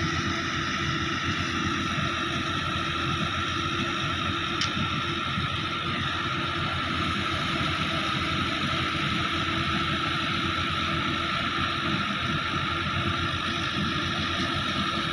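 Fiat 640 tractor engine running at steady speed, driving a thresher as it threshes. The tractor and thresher together make a constant mechanical drone, with a steady high whine over it.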